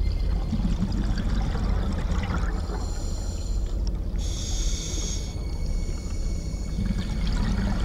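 Scuba diver breathing through a regulator, with hissing inhalations and bubbly exhalations, over a steady low underwater rumble.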